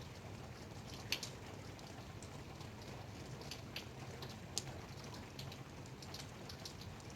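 Light rain: scattered drops ticking irregularly on a hard surface, one louder drop about a second in, over a steady low background hum.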